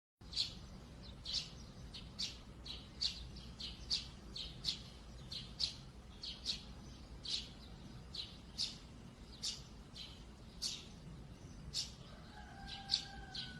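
A bird chirping over and over: short, high chirps, about two a second.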